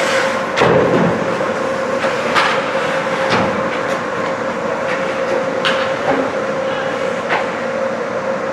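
Ice hockey play: scattered sharp clacks of sticks and puck on the ice, about one every second or two, with a heavier thud about half a second in, over a steady hum.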